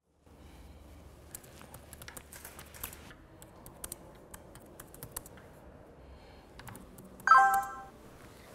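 Typing on a laptop keyboard, scattered key clicks. About seven seconds in, a short smartphone alert tone sounds over it, the loudest sound here.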